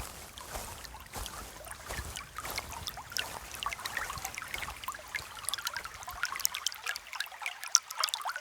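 A shallow stream trickling and babbling, growing louder over the first few seconds, with a few footsteps near the start.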